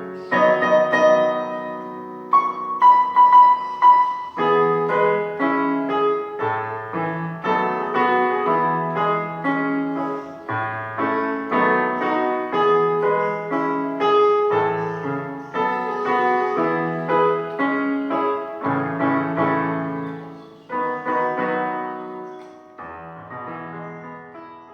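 Background music: solo piano playing a gentle melody over chords and a bass line, fading out near the end.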